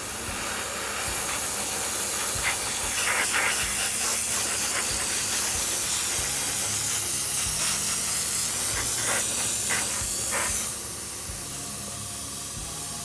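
Compressed-air paint sprayer hissing steadily at low pressure, around 20 PSI. The hiss grows louder about a second in and falls back to a quieter hiss near the end.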